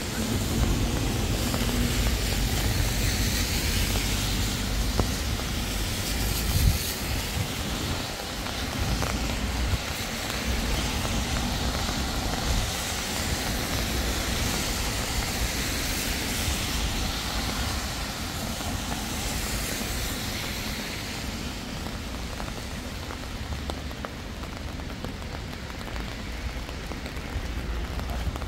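City traffic on rain-wet roads under steady rain: tyre hiss swells and fades as vehicles pass, over a continuous low rumble.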